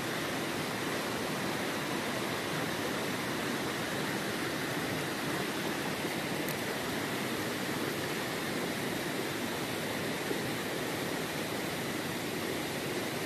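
Steady rush of running water, an even unbroken noise.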